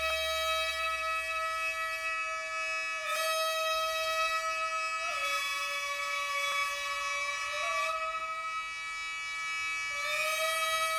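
Kibigaku music: a traditional Japanese wind instrument holding long, steady notes with a reedy tone. Its pitch steps down about five seconds in and returns to the first note near the end, with short bends at each change.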